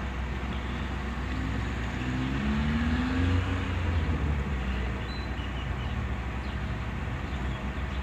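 Car engine idling with the electric radiator fan running steadily, switched on by the newly fitted coolant temperature switch at about 95 °C. A low hum rises in pitch and swells between about two and four seconds in.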